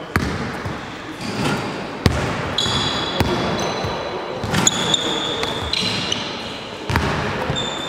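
Basketballs bouncing on a hardwood gym floor, a sharp slap every second or two, with short high squeaks of sneakers on the court in between. The room is a large echoing sports hall.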